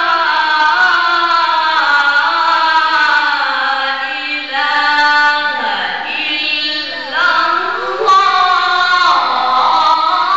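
A male reciter chanting Arabic Quran verses in the melodic qirat style. He holds long notes that slide and waver in pitch, with short pauses for breath between phrases.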